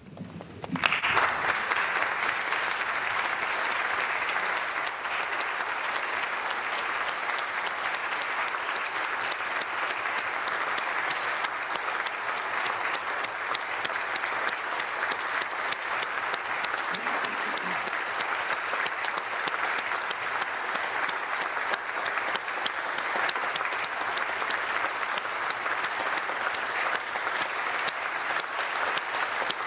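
Applause from a large crowd of legislators clapping together, starting about a second in and going on steadily.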